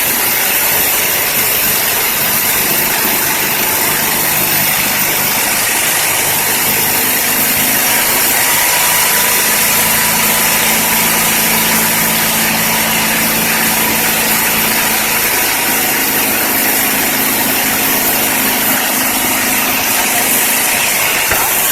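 Daihatsu Zebra engine running steadily at idle.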